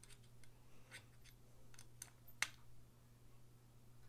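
Faint, irregular small clicks of a driver bit working the pivot screw of a Steel Will Barghest folding knife, as the pivot tension is adjusted to get the action acceptable. One click about two and a half seconds in is louder than the rest.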